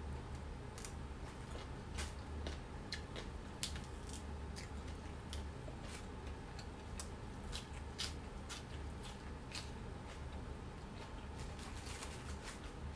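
Close-miked crisp chewing of raw green vegetable stems: irregular crunches and clicks every half second or so, over a low hum.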